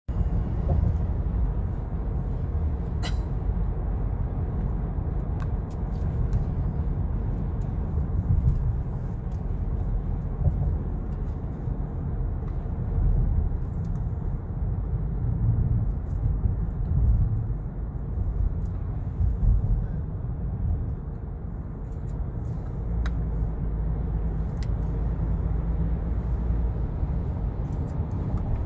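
Road and engine noise heard from inside a moving car: a steady low rumble, with a few faint clicks.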